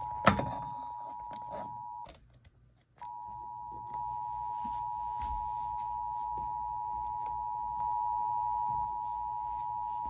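Emergency Alert System two-tone attention signal, two steady tones sounding together, announcing an incoming weather alert. It breaks off about two seconds in, and after about a second of quiet it resumes and holds steady.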